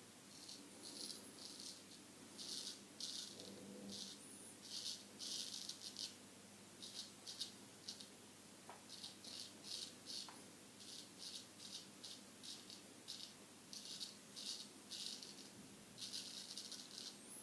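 Straight razor (a Solingen H. Geffgen 6/8) scraping through beard stubble in short, quick strokes, a few each second, with small pauses between runs. The lather is one the shaver finds thin, with poor glide.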